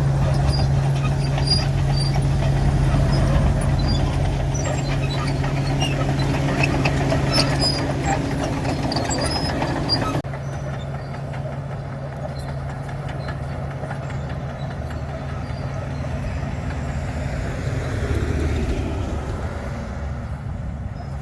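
Komatsu D61 bulldozer's diesel engine running under load with a steady hum, mixed with scattered crackling and scraping as it breaks up a chip-seal (DBST) road surface. About halfway the sound drops abruptly and the engine carries on quieter, swelling briefly near the end.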